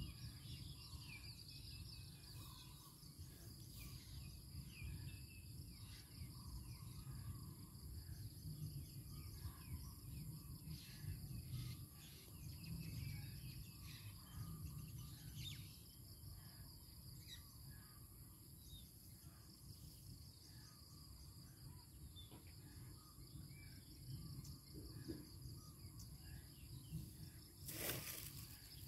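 Faint outdoor ambience: insects holding a steady high drone, with scattered short bird chirps and a low rumble underneath. A brief rustling noise comes near the end.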